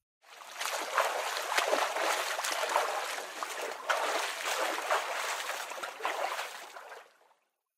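Water splashing and trickling, a dense run of small splashes that fades in and stops about seven seconds in.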